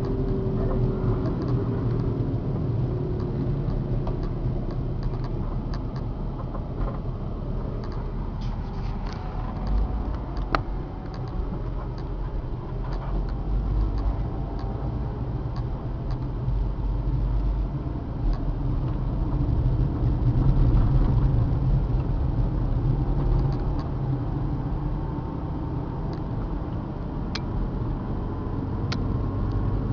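Car driving, heard from inside the cabin: steady engine and road rumble that swells about two-thirds of the way through, with scattered light clicks and rattles.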